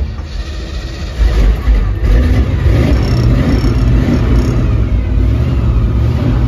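Small-block 350 V8 with a gear drive starting: it cranks, catches about a second in, and then runs steadily with the gear drive's old hot rod sound.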